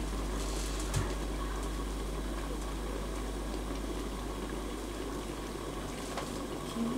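Tomato-sauce pork stew simmering in a lidded pan on a portable gas stove: a steady bubbling hiss. A single small knock comes about a second in.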